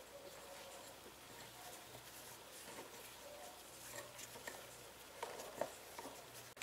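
Fingers kneading a small lump of flour dough in a small glass bowl: faint soft scratching and patting, with a few light ticks in the second half.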